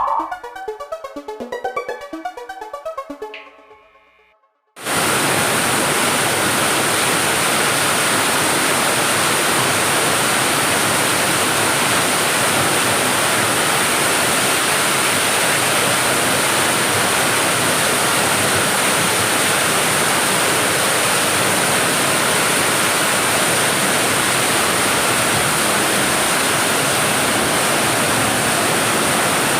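An electronic music track with a steady beat fades out over the first four seconds. About five seconds in, the steady rush of a waterfall starts suddenly and runs on evenly.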